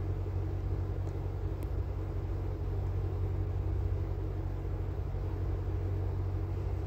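Steady low hum and rumble of background machinery, even throughout.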